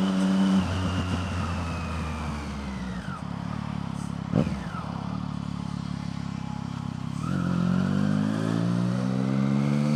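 Triumph Street Triple R's inline-triple engine with a Scorpion Serket taper exhaust, heard from the rider's seat: the engine note falls as the bike slows over the first few seconds, then rises steadily as it accelerates from about seven seconds in. A brief sharp sound about four seconds in.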